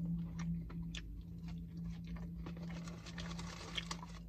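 Soft, irregular mouth clicks and chewing sounds over a steady low hum.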